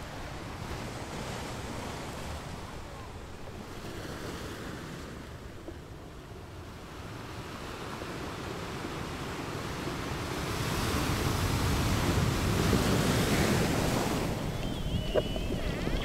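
Underwater ambience picked up by a camera in its housing: a steady rushing water noise that swells louder in the second half. Near the end come a few short, wavering whistles and clicks from bottlenose dolphins swimming close to the camera.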